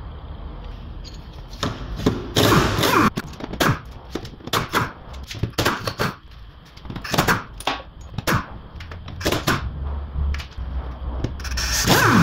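Impact wrench hammering in a string of short bursts as it spins out bolts on a car's underbody, the loudest burst near the end.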